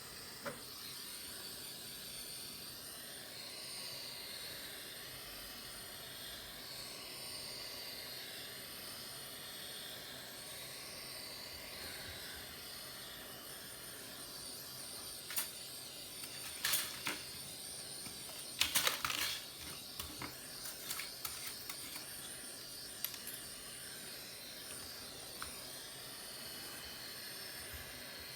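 Small sharp clicks and scrapes of tools or parts being handled, bunched together about halfway through, over a steady hiss.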